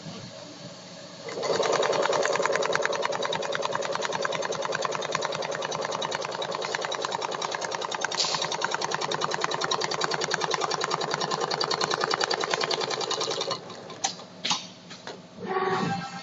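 Richpeace automatic pattern sewing machine stitching at high speed, a rapid, even rattle of needle strokes. It starts about a second in and stops shortly before the end, followed by a few sharp clicks and a brief burst of machine noise.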